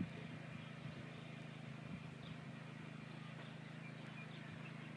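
A steady low hum with a few faint, short high chirps over it.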